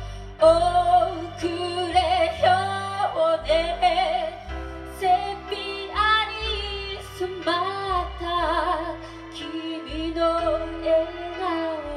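A woman singing a slow ballad into a microphone, holding long notes with vibrato, over a recorded accompaniment with sustained bass notes that change every second or two.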